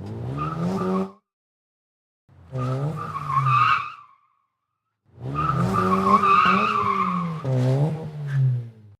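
Three bursts of a car's engine revving with tyres squealing, each cut off sharply into silence.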